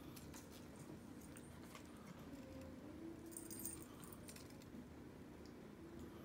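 Faint small metal jingle, brief and brightest about three and a half seconds in, with scattered light ticks and taps, as a cat leaps and swats at a dangling wand toy.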